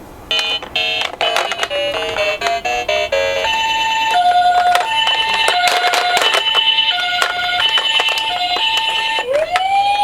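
Electronic ambulance siren sounding the two-tone hi-lo "pee-po" pattern, a high and a low note alternating evenly, after a quick run of short electronic notes and with scattered sharp clicks. Near the end a second siren wails up in pitch and holds.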